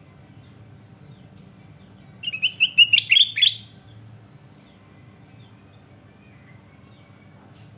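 Kutilang emas bulbul singing one short phrase of about seven quick whistled notes, rising in pitch, about two seconds in. A low steady hum runs underneath.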